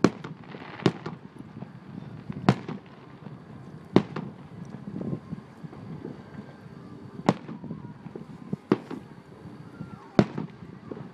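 Aerial firework shells bursting: about seven sharp bangs at uneven intervals, with fainter pops between them.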